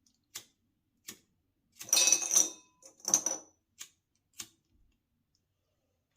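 Glass parts of a siphon coffee maker being handled: light scattered clicks, with two louder ringing glass clinks and scrapes about two and three seconds in.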